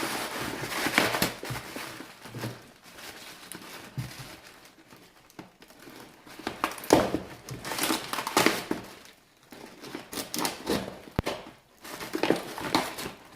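Packing material crinkling and rustling in irregular bursts as it is handled and pulled out of a parcel.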